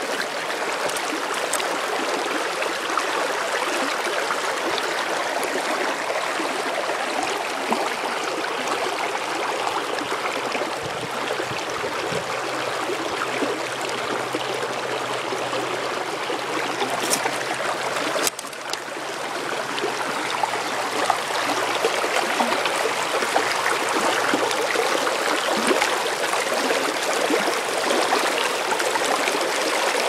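Shallow creek running over rocks: a steady rush of flowing water. It dips briefly a little past halfway, then runs a little louder.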